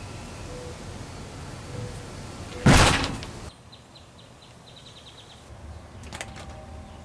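A front door slammed shut about two and a half seconds in, the loudest sound, fading quickly. A few light taps follow near the end.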